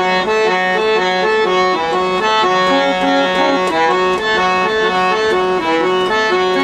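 Hand-pumped portable harmonium playing a melody of held reed notes with no singing, over a low note repeated about twice a second.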